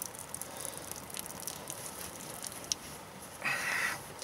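Leftover water trickling and dripping out of a loosened pipe union on a small water circulation pump, with scattered faint ticks. Near the end comes a short rustle as a cloth is rubbed over the wet fitting.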